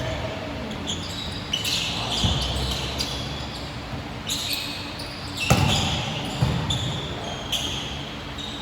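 Basketball being dribbled on a hardwood court in a gym, with a few hard bounces and many short, high-pitched sneaker squeaks, echoing in the hall.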